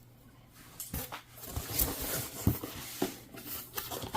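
Small objects being handled by hand: scattered light clicks, taps and rustles, a few each second, after a quiet first half second.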